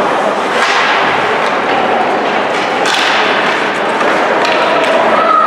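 Ice hockey game sounds in an arena: a few sharp cracks of sticks and puck over a steady din of crowd and rink noise, with a held tone near the end.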